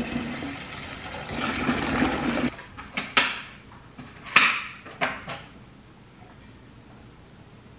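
Tap water running onto blueberries in a stainless mesh strainer and bowl, stopping abruptly about two and a half seconds in. Then come five sharp clicks and crackles of a plastic clamshell container being handled.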